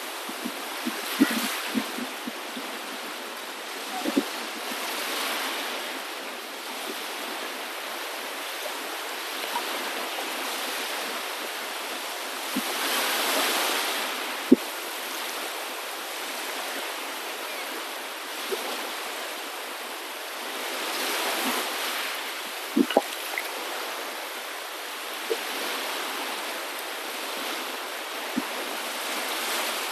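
Water washing in waves, the rush swelling and fading every several seconds, with a few sharp clicks scattered through.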